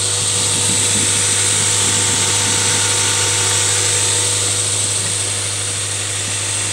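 Four-cylinder engine of a 1995 Honda Prelude idling steadily, heard up close in the open engine bay: a constant low hum with a steady high hiss over it.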